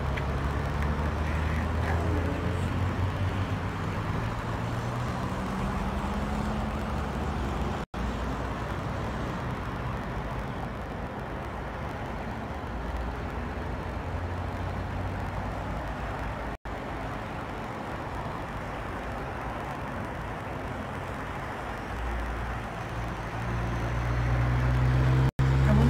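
Cars passing on a road: a steady engine and tyre hum that grows louder near the end.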